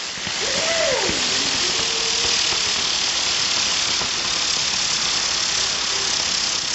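Ground firework burning, a steady loud hiss of spraying sparks.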